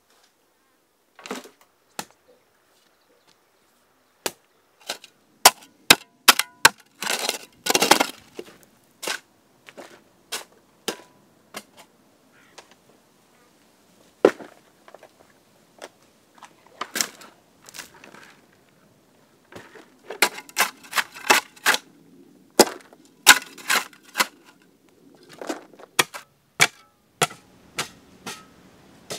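Hand digging in stony soil: sharp, irregular knocks and clicks of tools and stones, with a longer scrape about eight seconds in and a quick run of strikes between about twenty and twenty-five seconds.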